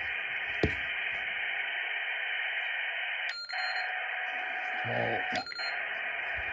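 Kenwood TS-50 HF transceiver's receiver hiss from its external speaker, a steady band of static with the squelch open. There is a sharp click about half a second in, and short beeps about three seconds in and again two seconds later as the operating mode is switched, with a faint steady tone between them.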